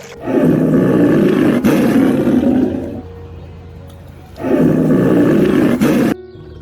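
Big cat roaring: two long, rough roars, the first about three seconds and the second about a second and a half.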